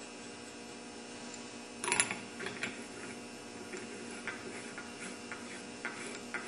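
Light metallic clicks and ticks as a flywheel puller is threaded by hand onto an ATV engine's flywheel, with one sharper click about two seconds in, over a faint steady hum.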